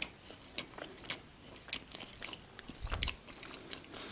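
Chewing and biting of an Orion Choco-Pie, a chocolate-coated sponge-and-marshmallow cake: many quick mouth clicks and smacks, with a low thump about three seconds in.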